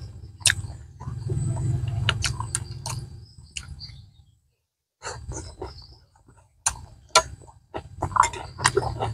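Close-miked eating sounds of a man eating balut (fertilised duck egg) with a metal spoon: wet chewing and mouth sounds with sharp clicks of the spoon. The sound cuts out for under a second about halfway through.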